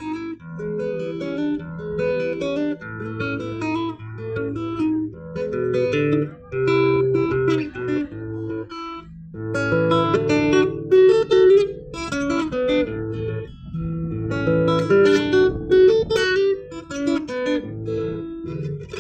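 Solo acoustic guitar playing the instrumental introduction of an Argentine gato, strummed chords over plucked bass notes.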